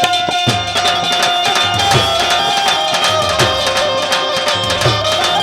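Instrumental passage of Gujarati folk devotional music: a hand drum keeps a steady beat, its deep bass strokes bending down in pitch about once every three quarters of a second, under a held, steady melody line.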